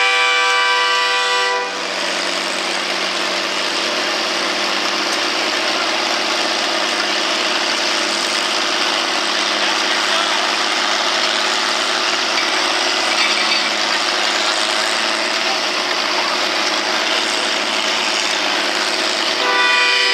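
Antique farm tractor engines running at a tractor pull, mostly a steady, dense rushing noise. A steady pitched, horn-like tone sounds at the start and comes back just before the end.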